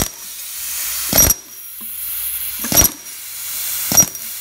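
Hammer striking a long steel chisel four times, about a second and a half apart, each blow ringing briefly, as the chisel breaks through the concrete skim coat and the inspection cap of a pipe form set in the floor.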